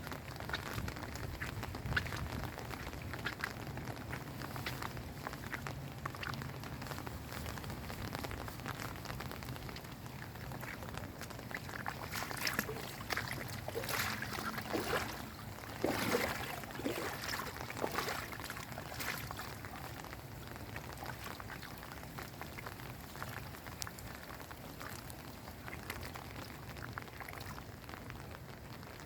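Steady rain falling with water splashing, a low hum under it for the first several seconds and a louder cluster of sharp splashes and knocks about halfway through.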